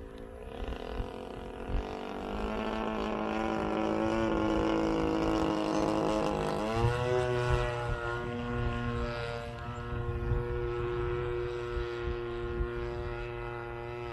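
Single-cylinder two-stroke DLE-35 gas engine of a large RC model plane running in flight, a steady engine-and-propeller note that shifts in pitch a couple of times early on and rises sharply about seven seconds in, then holds.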